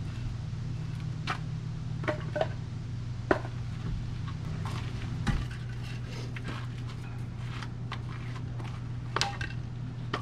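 Split firewood pieces knocking together as they are picked up and stacked: a handful of sharp wooden clacks spread through, over a steady low hum.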